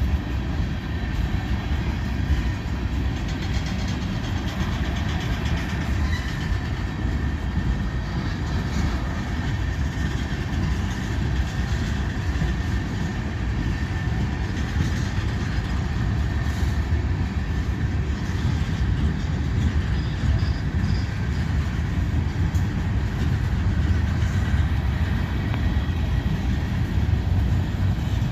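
Freight train of tank cars and hoppers rolling past at speed: a steady rumble of wheels on rail with some clickety-clack, and a thin high whine running underneath.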